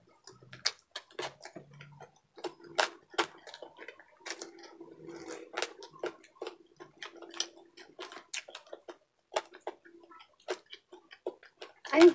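Close-miked eating sounds: wet lip smacks and chewing clicks, irregular and several a second, while chewing adobo meat and rice. A short, louder mouth sound comes right at the end.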